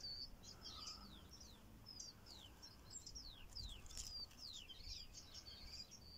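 Faint songbirds chirping: many short, high, quick downward-sliding notes, some in rapid runs.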